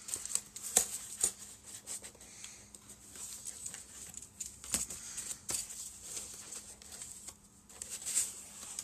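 Utility knife slitting the tape on a cardboard box, with scraping and rustling of cardboard as the flaps are pulled open, and scattered clicks and taps.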